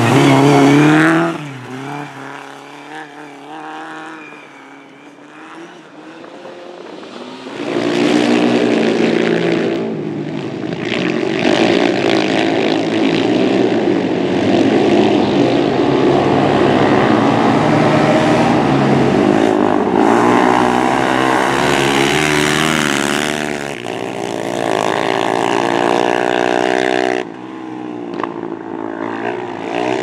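Race engines on a dirt track. A Lada saloon's engine is revving hard in the first second. After a quieter stretch, several quad bike engines rev up and down together, their pitch repeatedly rising and falling as they race.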